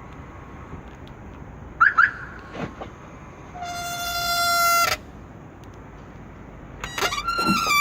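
Power-folding side mirrors of a 2013 Chevrolet Orlando squeaking as they fold. There are short chirps about two seconds in, then a long, steady, high squeal that grows louder for over a second, then more squeaks near the end. Both mirrors squeak.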